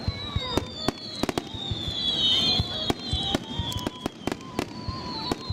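Aerial fireworks shells bursting in quick succession, many sharp bangs coming about two to three a second.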